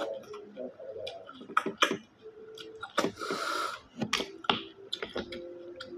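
A person sucking cooked freshwater snails (bisukol) out of their shells, with wet lip smacks and little clicks of the shells. One loud, hissing slurp comes about three seconds in.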